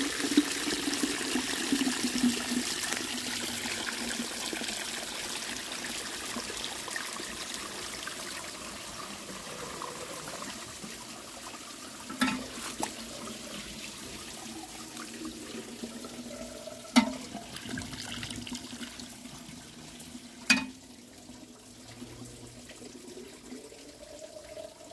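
Handmade clay toilet flushing: water rushes into the bowl and swirls down through the trap, then tapers off to a trickle, with a few short, sharp sounds in the middle. The siphon pulls slowly, because a sharp-edged baffle catches the water and slows the flow.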